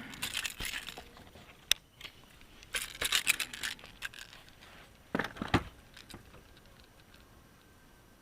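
Irregular bursts of rustling, rattling and sharp clicks, grouped about half a second, three seconds and five seconds in, then dying away: fishing tackle and a freshly hooked fish being handled as it is landed.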